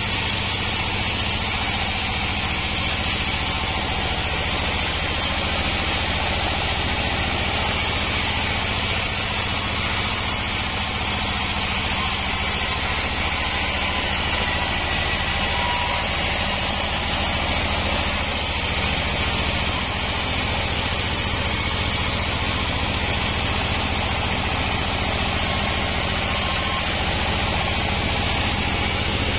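Homemade vertical band sawmill running with a steady hum, its blade sawing lengthwise through a wadang log as it is pushed along.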